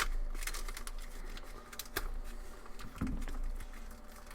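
Hands handling and starting to open a packaged cardboard product box: a sharp click at the start, then a run of small clicks, taps and rustles, with a duller bump about three seconds in.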